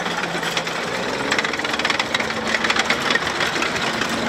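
M113 tracked armoured personnel carrier driving past at close range: its engine runs steadily under the dense, irregular clatter of its steel tracks, and the engine pitch rises slightly about two seconds in.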